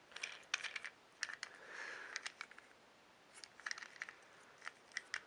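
Faint, scattered light clicks and taps of small plastic toy train trucks and packaging being handled, with a brief soft rustle about two seconds in.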